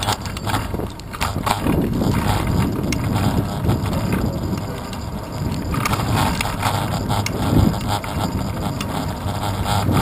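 Bicycle rolling over city pavement, heard through a handlebar-mounted camera: a steady rumble of road and wind noise with frequent small rattles and knocks as the bike goes over bumps.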